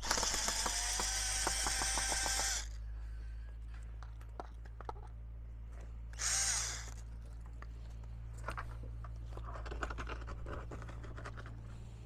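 Power drill running in two bursts, driving screws into wooden boards: a long run of about two and a half seconds at the start, then a short spin-up with a rising whine about six seconds in. Light knocks and clicks of work follow.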